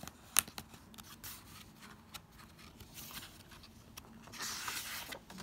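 Soft rustling and light clicks of a paper picture book being handled, with a page being turned about four seconds in.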